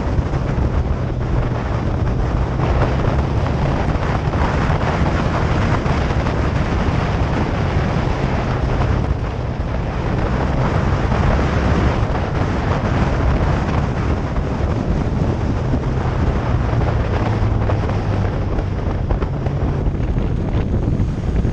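Motorcycle riding at a steady pace: a low engine hum under heavy wind noise buffeting the microphone.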